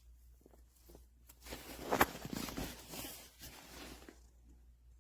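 Handling noise: scattered rustling and small clicks, with one sharp knock about two seconds in, followed by a second or so of louder rustling.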